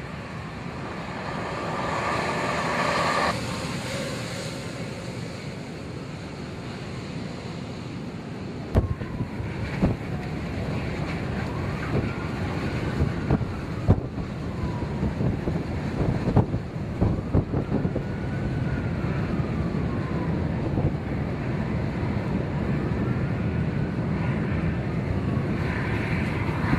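Strong wind rushing over the microphone, with sharp knocks a few times in the middle and a faint wailing tone that rises and falls three times.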